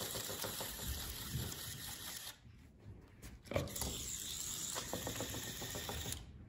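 Hexbug Scarab's vibration motor buzzing as the little robot bug scuttles across a cloth: a fast, dense rattle of tiny ticks. It drops out for about a second two seconds in, then resumes and fades out near the end.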